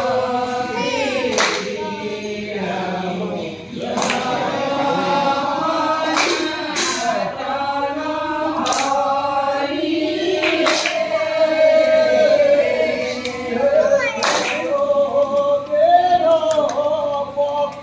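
A group of men and women singing a devotional naam chant together in long, drawn-out phrases, with a few sharp strikes at irregular moments.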